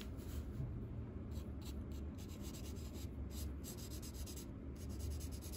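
Felt-tip colour marker nib rubbing across sketchbook paper in quick short back-and-forth strokes as it fills in colour, over a steady low hum.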